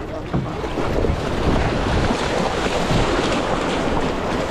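Wind buffeting the microphone over the slosh of shallow surf around a kayak, a steady rough noise throughout.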